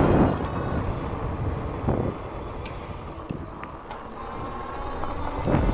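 Freedare Saiga electric fat-tire bike being ridden off-road: wind buffeting the microphone and tyre rumble, with a thin electric motor whine that fades out in the middle and comes back near the end.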